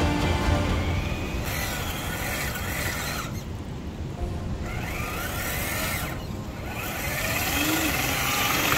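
Electric motor and gearbox of a Traxxas TRX-4 RC crawler (Titan 550 brushed motor) whining, rising and falling in pitch several times as the throttle is worked.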